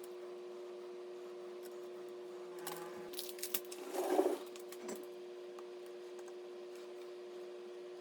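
Computer parts being handled: a few light clicks and a short rustle about three to four seconds in, over a steady hum of several even tones.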